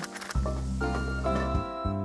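Background music: held notes over a steady bass line, coming in after a short break about a third of a second in.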